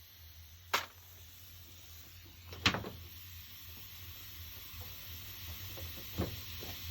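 Three sharp knocks, the second one the loudest, over a faint hiss that grows louder from about two and a half seconds in.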